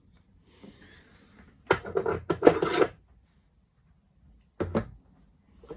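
Metal milling-machine accessories being handled: a scraping rub lasting about a second, then a single short knock near the end.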